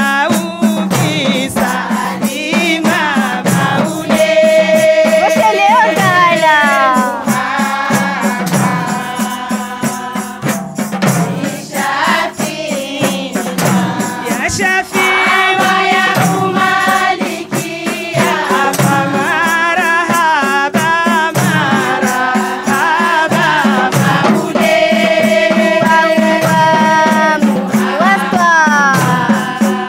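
Lead woman singing into a microphone with a women's choir, over a steady beat of hand-played frame drums.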